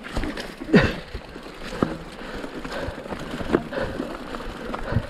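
Mountain bike rolling over a rough dirt trail: tyres crunching on dirt and stones with a low rumble, broken by several sharp knocks and rattles from the bike over bumps.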